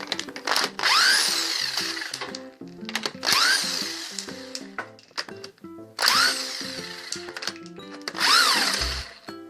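A power tool, such as a drill or driver, run in four short bursts, its whine rising and then falling in pitch each time, over background music.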